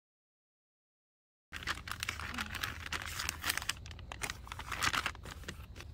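Silent for about the first second and a half, then dense crinkling and rustling of a Duraflame firelog's paper wrapper as the log is picked up and handled, easing off near the end.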